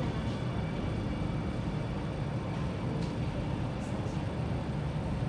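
Alstom Metropolis C830C metro train running, heard from inside the carriage: a steady low rumble with a faint steady high whine over it.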